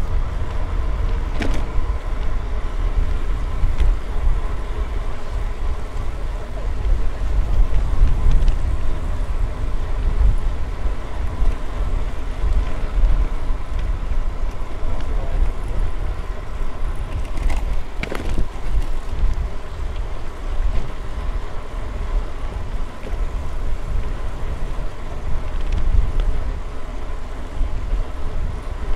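Wind rumbling on the microphone and bicycle tyres rolling on pavement during a steady ride, with a few sharp clicks, one about a second and a half in and two near the middle.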